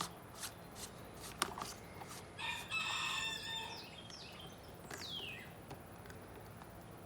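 A rooster crowing once, a call of about a second and a half in the middle. A few light clicks come before it, and a short falling whistle of a bird follows.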